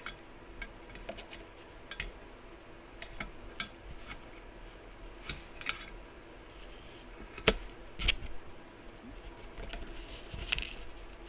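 Scattered small clicks and taps of hand tools and wire being handled on a workbench, with two sharper clicks about three-quarters of the way through.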